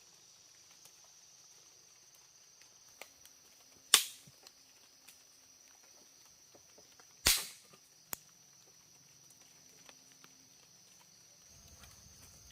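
Two loud sharp cracks about three seconds apart, each dying away quickly, with a few small clicks, over a steady high-pitched drone.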